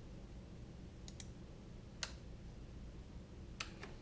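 Computer mouse clicking: a quick double click about a second in, a single click near two seconds, and two more clicks close together around three and a half seconds, over a low steady hum.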